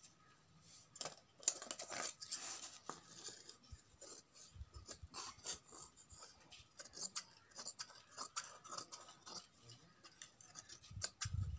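Large tailoring scissors cutting through folded blouse fabric: a run of short snips and blade clicks, busiest in the first few seconds.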